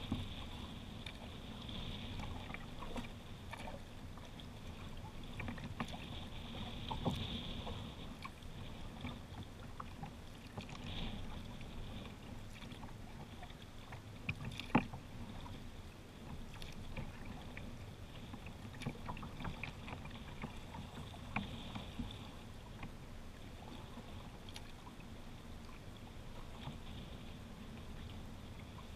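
Water sloshing and lapping along the hull of a kayak being paddled on a river, with scattered small clicks and one sharp tap about halfway through.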